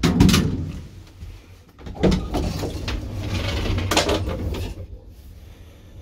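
Doors of a 1965 Fiam traction elevator being worked: a loud clunk at the start, then about two seconds in a door rattling along for a couple of seconds and banging shut near four seconds, over a low steady hum.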